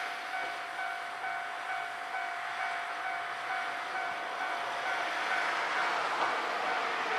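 Railway level-crossing warning bell ringing in a steady repeating pattern as an electric train approaches on the line. The train's running noise grows over the last couple of seconds.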